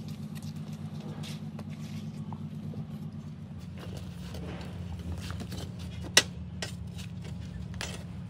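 Hammer blows on a steel sand-casting moulding flask, knocking the mould open: light scattered knocks and one sharp, loud metal strike about six seconds in, over a steady low machine hum.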